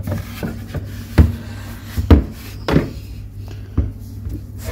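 Samsung Galaxy Tab S9+ tablet being handled and set down onto its cover on a desk: a few dull knocks and bumps, the loudest about two seconds in, over a steady low hum.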